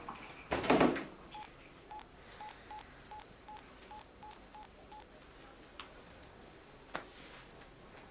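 Mobile phone keypad beeping as a number is dialled: about ten short, same-pitched beeps in quick, uneven succession. A dull thud comes just before the beeps, and a click near the end.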